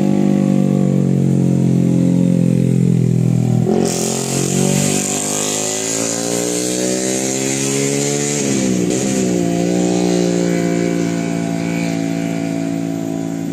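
Bus diesel engine pulling hard, its pitch dropping sharply at a gear change a little under four seconds in, then climbing slowly as it accelerates, with another dip at a shift around nine seconds before holding steady.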